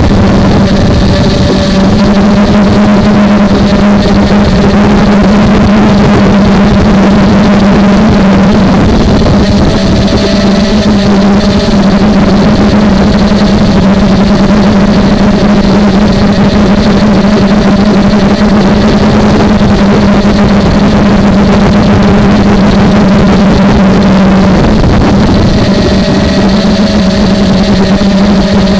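Old motors and propellers of a 250-size FPV quadcopter, picked up by its onboard camera: a loud, steady motor drone that shifts slightly in pitch as the throttle changes, with a brief dip a little before the end.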